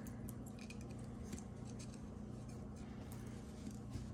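Faint light clicks and ticks of a fine chain necklace with small glass dangles being handled and set down on a cloth, over a steady low hum.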